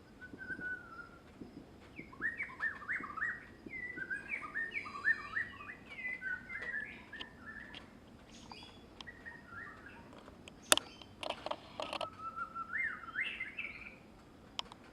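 Birdsong: quick runs of short chirps and whistled notes sliding up and down, with a lull in the middle. A single sharp click comes about two-thirds of the way through.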